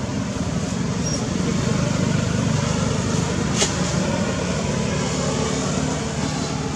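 Steady low rumbling background noise, like distant traffic, with one sharp click about three and a half seconds in.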